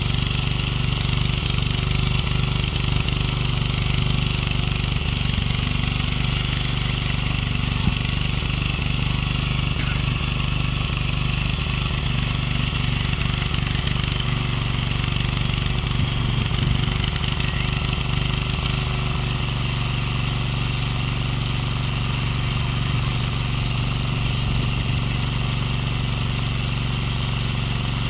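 Ecomax 12 hp walk-behind rotary tiller's engine running steadily under load as its tines till grassy soil.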